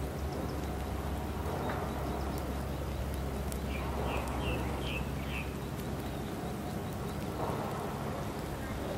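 Steady hiss of rain falling, over a low steady hum. About four seconds in, a quick series of about five high chirps.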